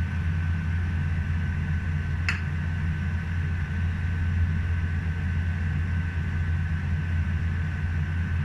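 Steady low mechanical hum and rumble with a faint steady whine above it, the running noise of a kitchen while a pot cooks on a gas stove. A single sharp click comes about two seconds in.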